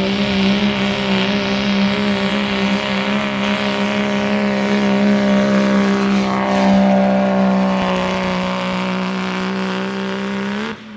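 A Ford Super Duty pickup's engine running flat out at steady high revs as the truck drags a weight sled down the pull track. The note holds one pitch with slight wavers, then cuts off suddenly near the end.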